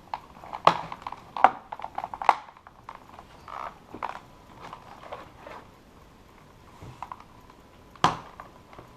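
Plastic clicks and knocks from handling the keyboard's plastic housing and parts during reassembly: a run of sharp clicks in the first couple of seconds, softer taps and rustling after, and one loud click about eight seconds in.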